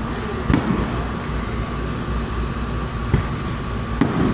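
Fireworks going off: sharp booms about half a second, three seconds and four seconds in, over a steady low rumble of bursts.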